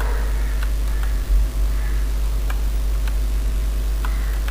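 Steady low hum, with a brief low thump about a second in. A few faint clicks of computer keyboard keys come through as a command is typed.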